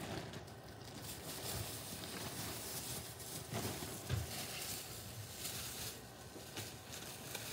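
A large plastic bag of popcorn rustling and crinkling as it is handled, with soft knocks and scuffs mixed in.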